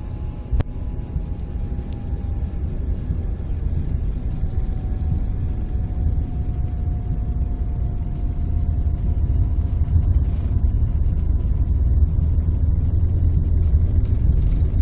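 Cabin noise inside an Embraer ERJ-145 regional jet on its takeoff roll: a steady low rumble from its rear-mounted Rolls-Royce AE 3007 turbofans and the runway, growing louder as the jet gathers speed. A single brief click sounds just after the start.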